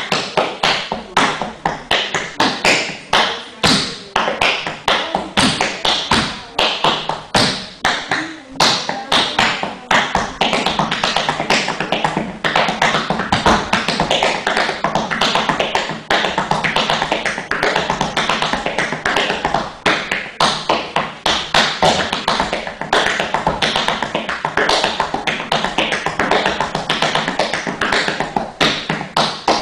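Tap dancing: metal-plated tap shoes striking the floor in quick rhythmic patterns, more spaced out at first and then in long runs of fast, closely packed taps from about ten seconds in.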